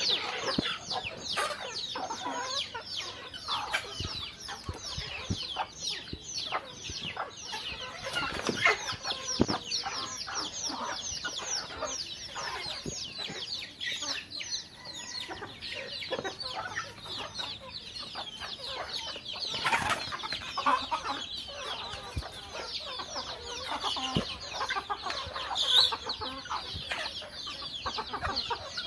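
A flock of chickens clucking and peeping, with many short high calls overlapping without pause.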